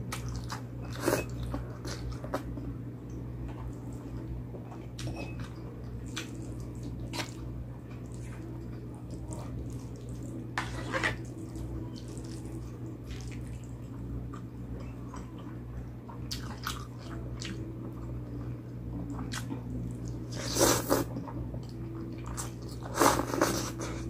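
Close-miked eating: chewing and biting with many small wet mouth clicks and a few louder bites, over a steady low hum.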